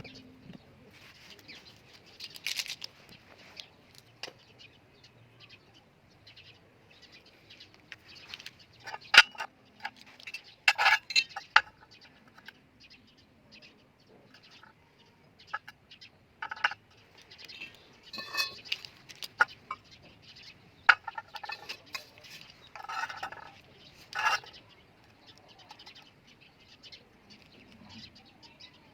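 Birds chirping and calling in short bursts, with a few sharp knocks or clicks.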